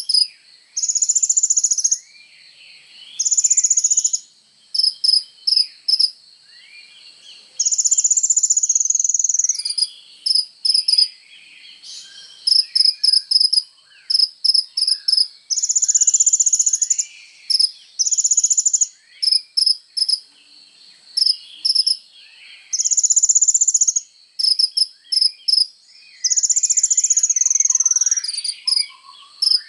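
Loud, high buzzy trilling like a cricket's, in long trills of about a second alternating with quick runs of short pulses. Fainter short sweeping bird chirps run underneath.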